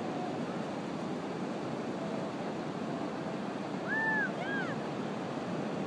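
Steady rush of ocean surf with some wind, and about four seconds in two short, high, arching calls.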